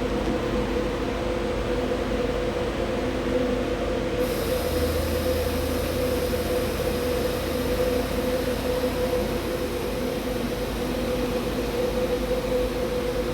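The print shop's central hydraulic pump unit, which makes the hydraulic pressure for the whole building, running with a steady hum and a mid-pitched whine. About four seconds in a faint higher hiss joins in, and a deeper hum swells for a few seconds.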